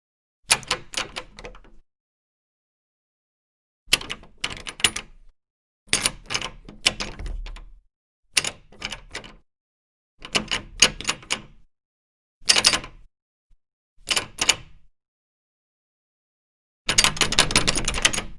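Door knob turned over and over, its latch mechanism clicking and rattling in about eight separate bursts with silent gaps between them; the last burst, near the end, is the longest.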